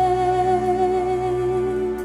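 Contemporary worship song: a singer holds one long note with slight vibrato over steady instrumental accompaniment, the note fading near the end.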